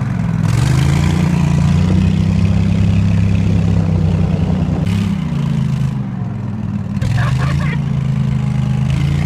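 Pro-Drive mud motor pushing a jon boat at speed, its engine running hard under throttle with a rushing noise of wind and water. The engine note drops a little past halfway and climbs back up.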